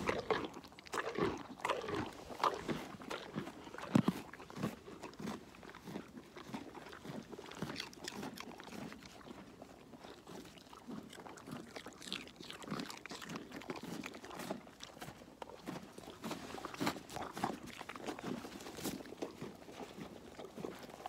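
An alpaca crunching and chewing raw carrots close to the microphone: irregular crisp crunches, loudest in the first few seconds.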